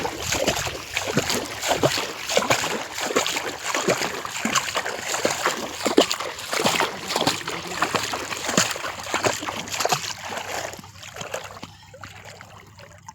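Many people wading and splashing through shallow, muddy canal water, with a dense run of irregular splashes that thins out near the end.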